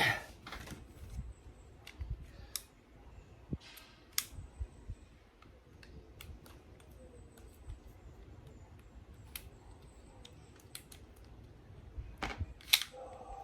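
Scattered small clicks and light knocks of a WE T-Rex Hi-Capa gas blowback airsoft pistol being taken apart by hand, its slide being worked off the frame. A sharper run of clicks comes near the end.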